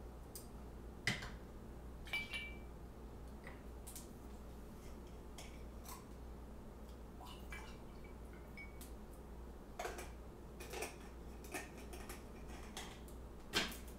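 Glass bottles and a drinking glass being handled while mixing a drink: scattered clinks and clicks of bottle caps and glass on the table. The loudest come about a second in and near the end, over a faint steady hum.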